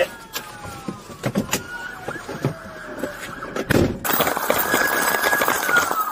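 Police siren winding down in slowly falling tones, with scattered knocks and clicks. From about four seconds in, a louder rushing, rustling noise comes in, and a siren tone holds and then falls again near the end.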